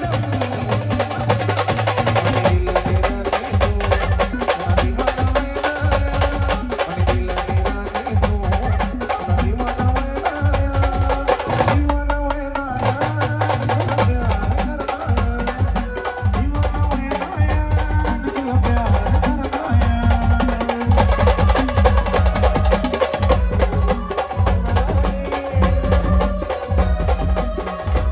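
Indian brass band music: a melodic lead line over fast, heavy drumming, with the drums dropping out briefly about twelve seconds in.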